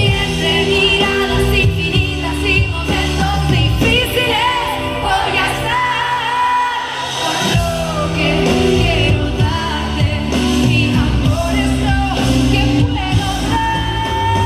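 Live pop band playing, with a woman singing the melody over bass, drums and guitar. The bass and drums drop away for a few seconds in the middle, then come back in.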